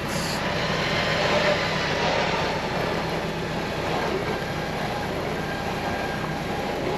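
A 4x4's winch running steadily under load, dragging a fallen log, with a low steady drone.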